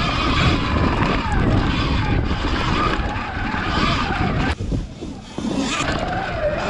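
Sur-Ron X electric dirt bike ridden fast on a rough dirt trail: wind rushing over the helmet microphone, with the electric motor's whine rising and falling in pitch. The noise drops briefly about four and a half seconds in, then picks up again.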